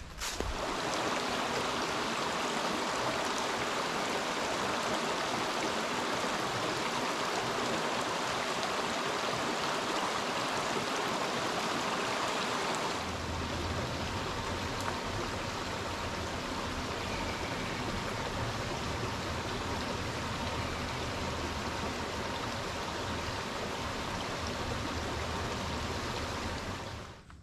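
Steady rushing noise with no distinct events. It starts and stops abruptly and takes on a deeper tone about halfway through.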